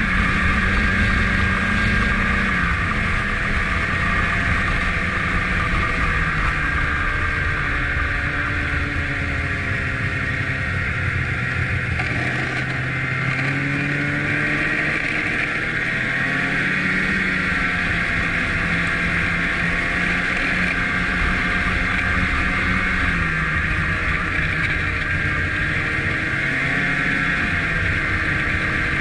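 Snowmobile running along a trail, its engine pitch rising and falling with the throttle, easing off about halfway through and then picking up again, over a steady high whine.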